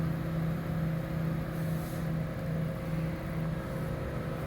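Heavy diesel engine running steadily with a low, even drone, and a brief faint hiss about two seconds in.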